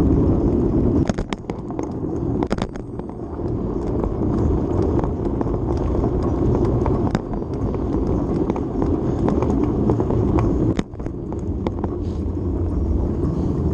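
Wind rushing over the microphone of a handlebar-mounted action camera on a moving bicycle, with tyre rumble on pavement: a steady low rumble broken by a few sharp clicks and rattles about a second in, around two and a half seconds and near eleven seconds.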